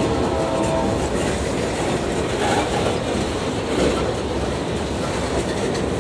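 Boxcars of a freight train rolling past close by: a steady noise of steel wheels running on the rails, with a thin squealing tone during the first second.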